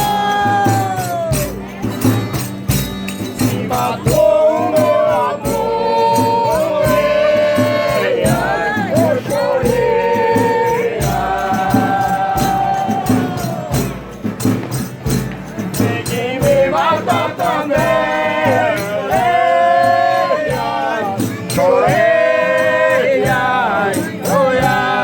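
A Folia de Reis group singing together in long held phrases, over a steady shaking of tambourine and other percussion.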